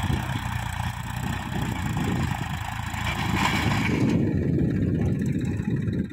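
Massey Ferguson 241 DI tractor's three-cylinder diesel engine running under load as it drags an implement through dry, loose soil. A hiss rides over the engine and drops away about four seconds in as the tractor moves off.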